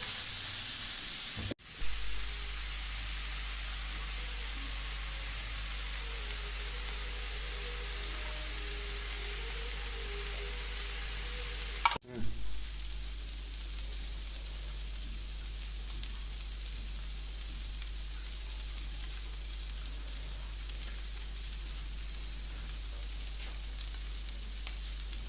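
Chicken sizzling as it fries in oil on a tawa, a flat griddle. The steady sizzle is broken by two abrupt cuts, about a second and a half in and about twelve seconds in, each followed by a brief thump. After the second cut the sizzle is a little softer.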